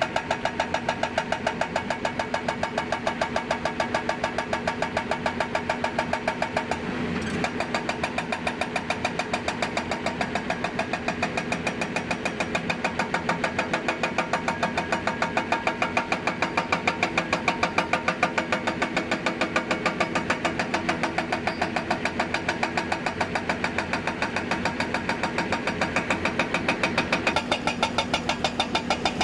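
Hydraulic breaker on a Hyundai 290 excavator hammering rock in a rapid, even run of blows over the excavator's running diesel engine. The blows stop briefly about seven seconds in, then carry on.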